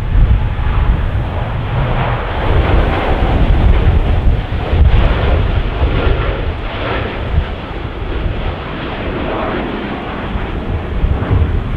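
Jet airliner taking off, its engines giving a deep, loud rumble, with strong wind buffeting the microphone.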